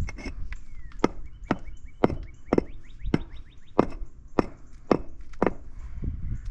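Rubber mallet striking concrete pavers in a steady run of dull knocks, about two a second. The pavers are being tapped down to seat them level in the sand bed.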